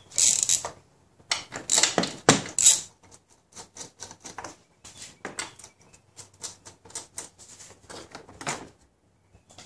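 A socket ratchet clicking as it backs out the 10 mm bolts on a plastic engine cover, in quick runs of clicks. There are louder clatters in the first few seconds.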